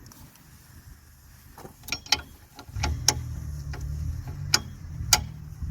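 Scattered sharp metallic clicks and clinks of hand tools being handled at a car's rear wheel hub, about five in all, with a low rumble coming in about three seconds in.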